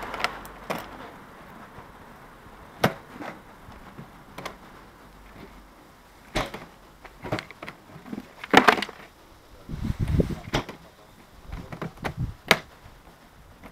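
White plastic motorcycle top case being opened and handled, giving scattered sharp clicks and knocks from its latch and lid, with a few low thumps about ten seconds in.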